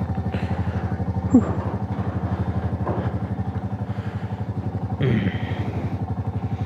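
Motorcycle engine idling steadily with an even pulsing exhaust, about nine beats a second.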